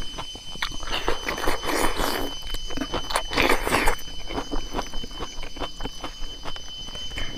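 Close-up eating sounds: chewing and mouth clicks, with two longer noisy stretches about one and three seconds in, over a faint steady high whine.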